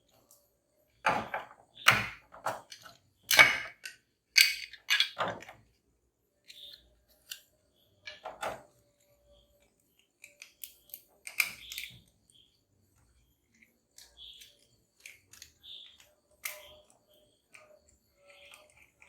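Clatter of hand tools and small parts being handled on a workbench: a quick run of sharp clicks and knocks in the first few seconds, then scattered lighter taps.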